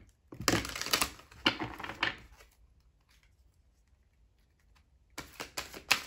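A deck of oracle cards being shuffled by hand: a run of quick, crisp card clicks and flutters for the first two seconds or so, a quiet pause, then another run starting about five seconds in.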